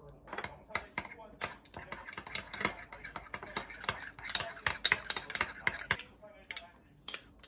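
Metal spoon stirring in a small ceramic dish, mixing whole grain mustard and mayonnaise: a quick run of clinks and scrapes against the dish that thins out about six seconds in.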